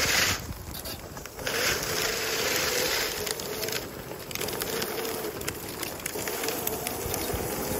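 Homemade go-kart rolling on rough asphalt, its tyres giving a steady rumbling road noise. Over it runs a faint, wavering grinding tone from the rear brake caliper scraping the disc, as the caliper is set slightly out of line and drags.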